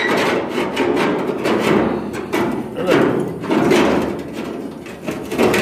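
A cut-off piece of old quarter-panel sheet steel being wrestled out from behind a welded-in panel: repeated metallic knocks, rattles and scraping as it is worked free.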